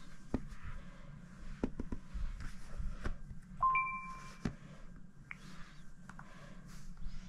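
Tablets being handled on a bedspread, with several short taps and knocks. About three and a half seconds in, a tablet gives a short two-tone electronic chime, a lower tone joined by a higher one, lasting under a second.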